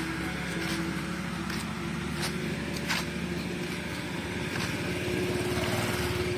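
Motor scooter engine running as the scooter rides up and passes close, getting louder near the end, over a steady engine drone in the background. A few light clicks are heard along the way.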